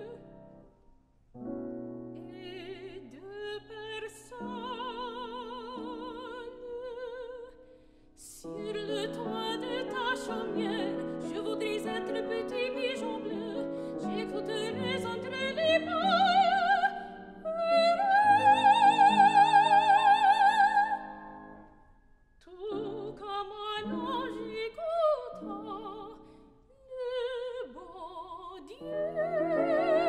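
Soprano singing a French art song with wide vibrato over grand piano accompaniment. The line builds to a loud, held high note about eighteen seconds in, then drops back with short breaths between phrases.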